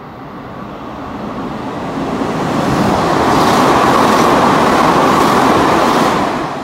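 Hanshin 8000 series electric train running through the station at speed without stopping: a rushing rumble of wheels and motors that grows as it approaches and is loudest as the cars sweep past, then cuts off suddenly near the end.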